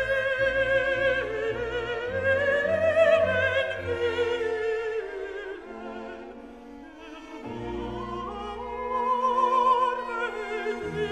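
Operatic singing with orchestral accompaniment: a voice holds long notes with wide vibrato over low sustained strings. It grows quieter in the middle and swells again after.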